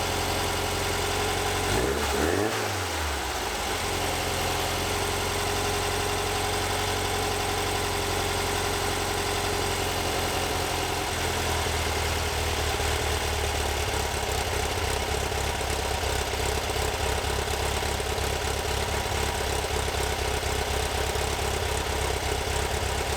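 The newly installed air-cooled flat-four engine of a 1964 Volkswagen bus, running steadily at idle, with a brief swoop in engine pitch about two seconds in.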